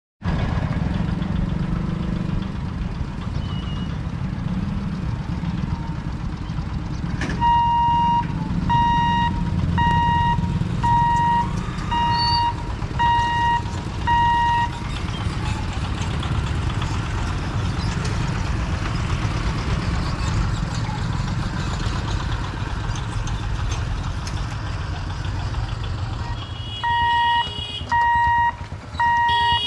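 Level-crossing boom barrier warning beeper sounding a steady electronic beep about once a second for several seconds while the booms lift, over a steady low rumble. The beeping starts again near the end.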